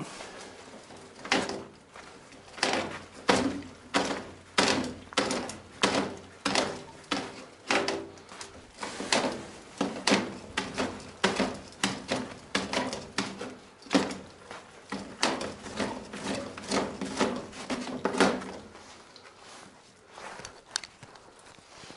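A long run of sharp knocks, about two a second, with a faint ringing under them, stopping about eighteen seconds in.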